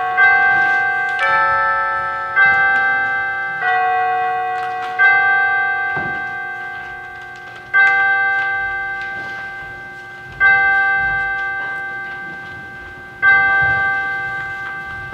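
Slow instrumental music of struck, ringing chords, each fading out before the next. The chords come about once a second at first, then slow to one every two to three seconds, the last ringing out near the end as the piece closes.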